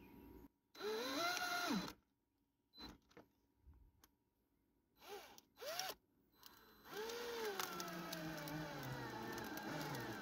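Black+Decker cordless drill/driver driving screws into plywood: a short burst of the motor about a second in, two quick trigger taps around five to six seconds, then a longer run from about seven seconds whose whine falls steadily in pitch as the screw drives in.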